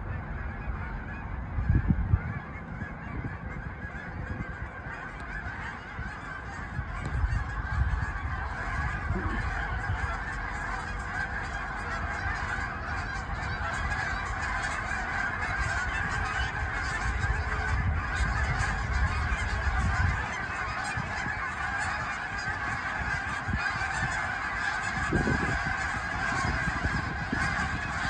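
A large flock of geese honking in a dense, continuous chorus, with gusts of wind rumbling on the microphone about two seconds in, around seven to eight seconds and near the end.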